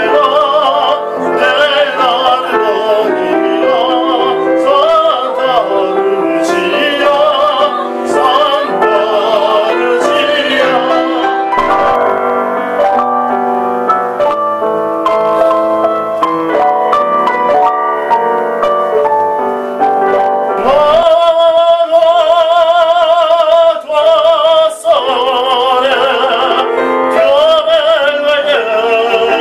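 Male operatic voice singing with strong vibrato, accompanied by a grand piano. About two-thirds of the way through, the voice swells into a loud, long-held note.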